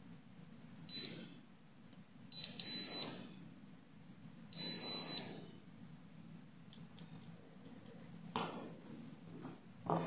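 Digital multimeter beeping in a continuity check as its probes touch the pins of a USB-C charging connector: four high beeps within the first five seconds, two short, then two longer. A couple of light knocks follow near the end.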